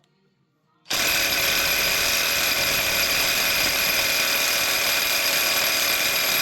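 Impact wrench hammering steadily, trying to break loose the gland of a hydraulic tilt cylinder that has just been heated. It starts again about a second in after a short stop.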